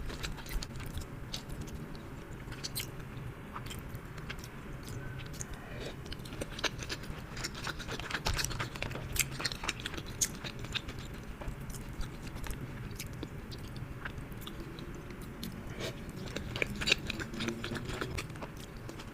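Close-miked eating: chewing and biting, with many irregular sharp clicks and smacks from the mouth.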